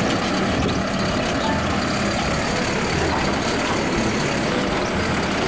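Mack low-cab-forward refuse truck with an automated side-loading arm, engine running steadily while the hydraulic arm grabs a wheeled trash cart and lifts it to tip into the hopper.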